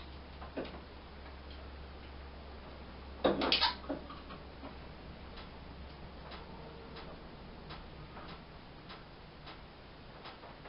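Small fire crackling with scattered single pops, and a louder cluster of knocks and crackles about three seconds in.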